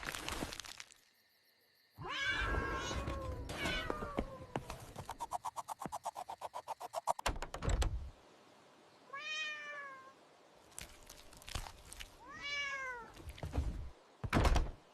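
A cat meowing three times, with drawn-out, bending calls. Between the first and second meows there is a fast rattling pulse of about eight beats a second, and short thumps fall here and there.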